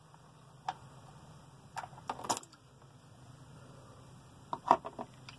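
A few scattered clicks and knocks from handling the plastic oil drain pan and parts under the truck during an oil change, with the loudest near the end, over a low steady hum.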